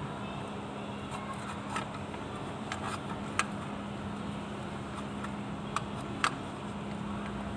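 A few sharp metallic clicks and clinks as a splined propeller-shaft coupling is handled and slid on its splines, over a steady low hum.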